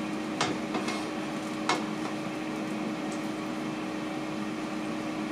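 Metal tongs clicking against an electric skillet as plantain slices frying in it are turned, a few sharp clicks in the first two seconds, over the steady fan hum of a running Ninja air fryer.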